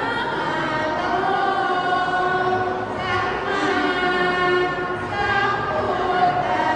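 Women's group chanting Sarabhanya (Thai Buddhist devotional verse) together, in drawn-out, sliding sung phrases with short breaks about three and five seconds in.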